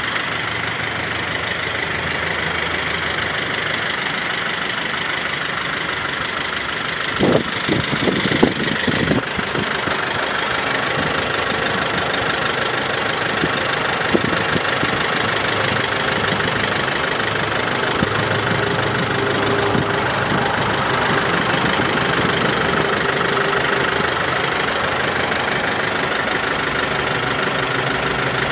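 SsangYong Actyon Sports pickup's 2-litre four-cylinder turbodiesel idling steadily, with a few brief knocks about seven to eight seconds in.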